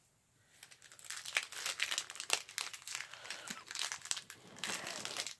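Foil wrapper of a Pokémon booster pack being torn open and crinkled in the hands: a dense run of crackles that starts about half a second in.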